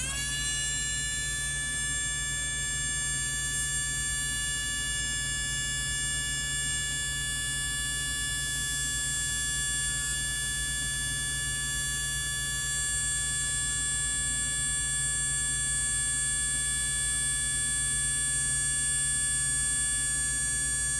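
Tamiya Mini 4WD electric motor, running on two alkaline batteries in the car's chassis, spinning up at the start and then holding a steady high-pitched whine at full speed, about 34,000 rpm.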